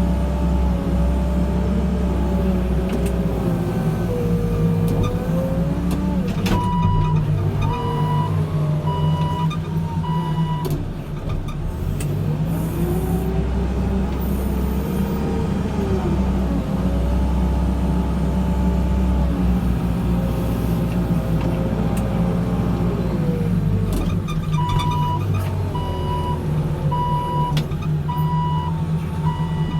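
Backhoe loader's diesel engine working under load, its pitch rising and falling as the machine pushes and moves the muck. A reversing alarm beeps steadily twice, for about four seconds starting about 7 seconds in, and again from about 25 seconds in.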